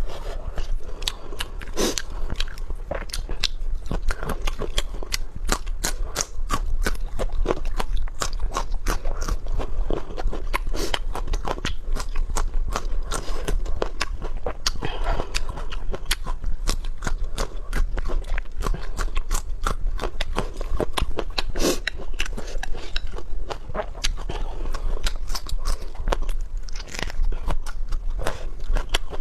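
Close-up eating sounds: a person biting and chewing food with a dense run of small crunchy, wet clicks that goes on without pause.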